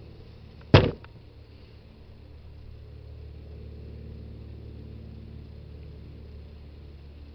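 A single sharp knock close to the microphone about a second in, with a fainter click right after, over a steady low hum that swells slightly toward the middle.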